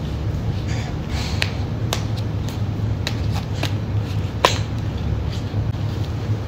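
Steady low hum with scattered light clicks and taps, about a dozen in all, the sharpest one about four and a half seconds in.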